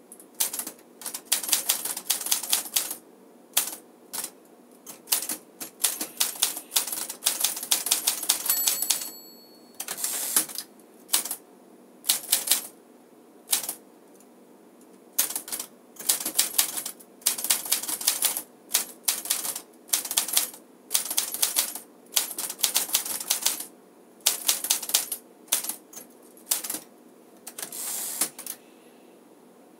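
A 1956 Smith-Corona Silent Super manual typewriter being typed on in quick runs of keystrokes with short pauses between them, its typing exceptionally quiet. A short ring about nine seconds in is the margin bell, and near the end the carriage is returned.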